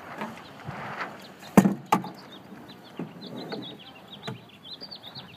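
Two sharp wooden knocks, a third of a second apart, as a Sabot dinghy's daggerboard and rudder are set down into the hull, with softer handling noise around them.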